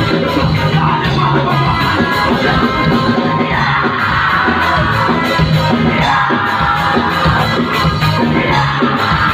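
Live rock band playing loud and distorted, with drums, electric guitar and a yelled vocal, recorded from inside the crowd.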